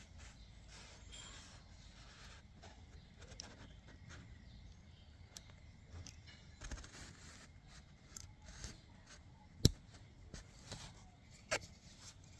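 Faint handling noises from a car's side turn signal lamp being worked by hand: light rubbing and scraping with scattered small clicks, the sharpest about ten seconds in and another a couple of seconds later.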